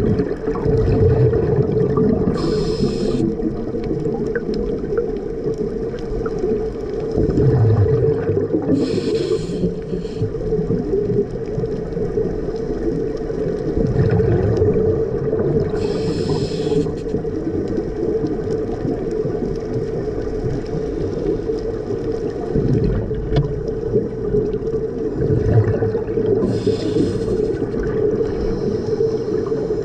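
Underwater sound of a scuba diver breathing through a regulator: a short hiss of inhalation four times, each followed by the low bubbling rumble of exhaled air. Under it runs a steady low hum.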